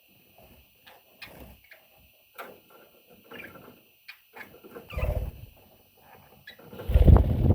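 Budgie chicks shuffling and scratching about, with a few brief high squeaks. Two louder low bumps and rustles come about five and seven seconds in, the second the loudest.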